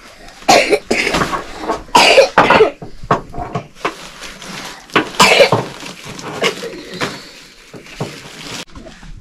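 A person coughing repeatedly in short, sharp fits, with clusters of coughs about half a second in, around two seconds in and around five seconds in.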